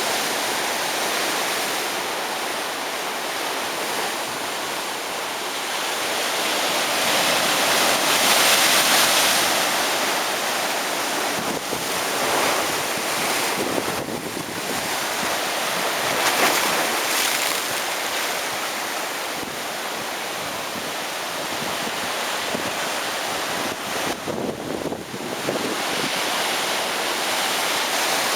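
Heavy ocean surf breaking on a beach: a continuous rushing wash of water noise that swells louder several times as waves break.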